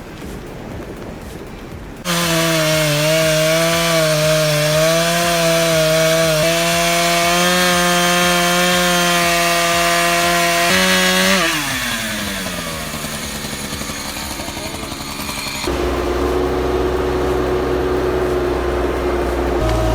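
Two-stroke chainsaw starting up about two seconds in and running at high revs as it cuts through wood, its pitch wavering with the load. About halfway through the revs drop away in a falling glide, and near the end a lower, steadier engine sound takes over.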